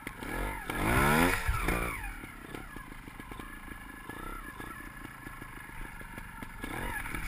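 Sherco 250 cc trials motorcycle engine revved up sharply about a second in, then dropping back to low revs with a run of short clicks, and revved again briefly near the end.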